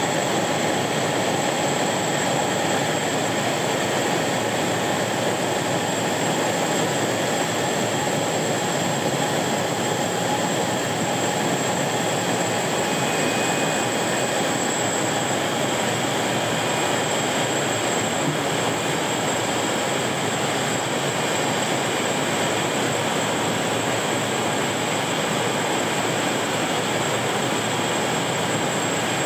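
Floatplane engine and propeller running steadily in level flight, heard inside the cabin along with rushing air.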